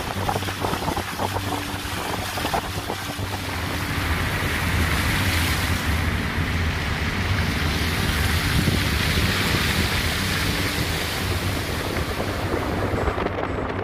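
A car driving through floodwater: a steady rush of water spraying off the tyres, mixed with wind buffeting the microphone, over a low steady hum.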